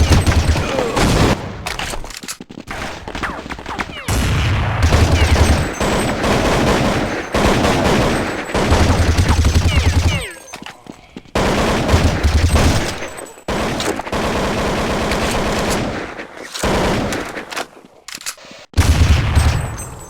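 Fart sounds: a series of loud, sputtering bursts of rapid pulses, each one to two seconds long, coming every few seconds.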